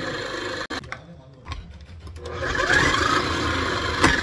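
Electric food processor running as cabbage is fed through its shredding disc: the motor cuts off suddenly under a second in and starts again about two seconds later, with a sharp click near the end.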